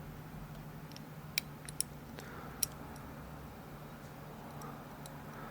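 Faint metallic clicks of a dimple pick and turning tool working the pin stacks of a Thirard dimple padlock: a handful of sharp clicks between about one and three seconds in, over a low steady hum.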